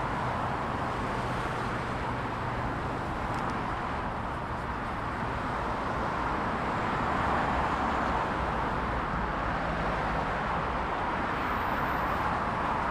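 Heavy motorway traffic recorded close up: a continuous dense rush of many cars passing, tyre and engine noise blending together, swelling a little about halfway through.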